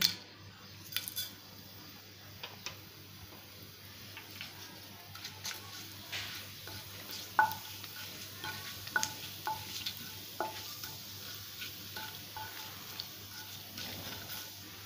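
Cumin seeds and bay leaves sizzling in hot oil in a nonstick kadai. A wooden spatula stirs them, knocking against the pan with short clicks, some ringing briefly, more often from about six seconds in.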